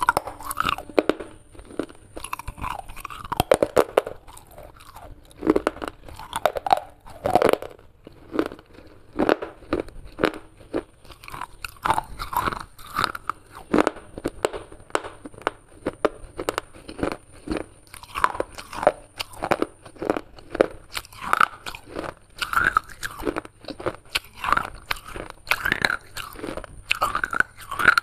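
Close-up biting and chewing of broken unglazed clay pottery shards: many irregular, sharp crunches and cracks as the pieces are bitten and ground between the teeth.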